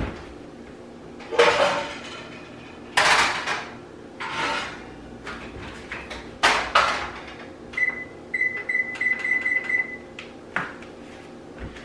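Metal pots and pans clanking and clattering several times as they are pulled out of the oven. Then the oven's electronic control panel beeps in a run of short high beeps for about two seconds as it is set to preheat, followed by one more knock.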